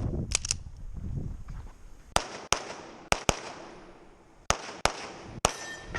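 Gunshots fired in quick pairs during a timed shooting stage: four pairs, about a second or less apart, then a single shot near the end, each a sharp crack with a short ringing tail.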